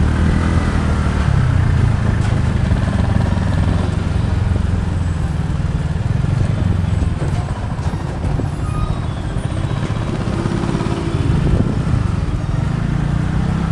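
TVS Ntorq 125 scooter being ridden: a steady mix of engine and road noise, heaviest in a low rumble, with no breaks.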